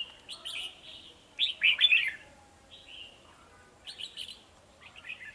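Red-whiskered bulbuls singing in short bursts of chirpy phrases, the loudest cluster a little under two seconds in. It is the song duel of males drawn in to challenge a decoy bird.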